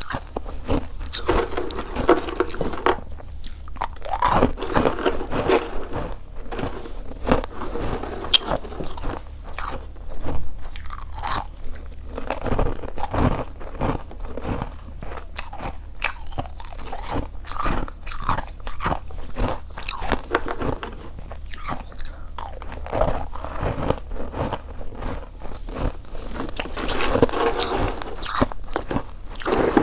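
Close-miked chewing and crunching of freezer frost, a dense run of irregular crisp crackles with no pauses.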